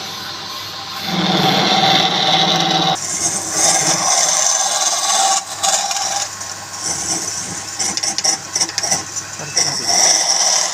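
Wood lathe running with a turning tool cutting into the spinning wood. The cutting hiss grows much louder and brighter about three seconds in, then varies as the tool is worked.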